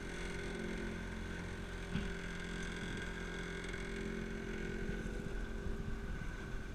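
Outboard motor running steadily as a small open motorboat pushes through choppy water, with rushing water and wind noise, and a brief thump about two seconds in.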